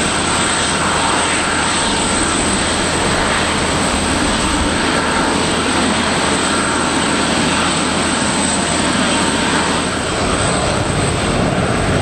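Airbus A350-941's Rolls-Royce Trent XWB turbofans running at taxi power: a steady jet rush with a faint, even whine.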